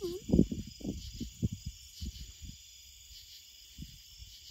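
Crickets chirping in a steady evening chorus, with a few soft low thumps and rustles in the first couple of seconds.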